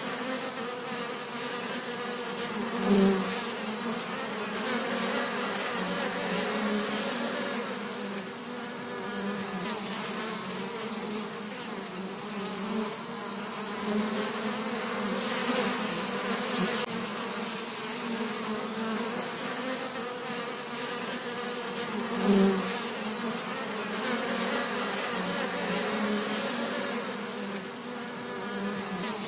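Bee buzzing: a continuous, wavering drone that swells briefly louder twice, about three seconds in and again about twenty-two seconds in.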